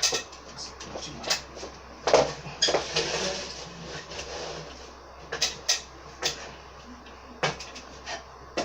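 Scattered knocks and clicks of objects being handled, with a short scraping rustle about three seconds in.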